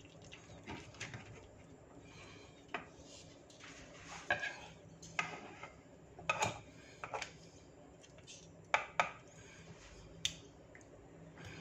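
Knife slicing pan-fried chicken on a bamboo cutting board while steel tongs hold it: scattered sharp knocks and clicks of blade and tongs on the wood, with a pair of louder knocks about nine seconds in.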